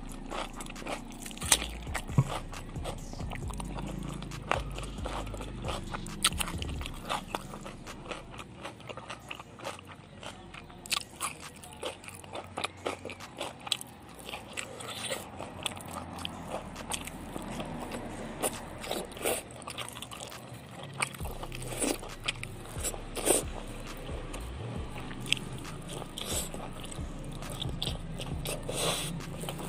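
A person chewing and crunching raw cucumber and chili-sauced chicken offal, with many short, irregular crunches.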